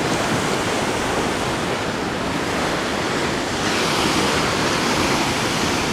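Large ocean waves crashing and washing against a lava-rock jetty in a steady roar of surf, with some wind buffeting the microphone. The surf noise grows brighter and hissier about three and a half seconds in, as more water breaks close by.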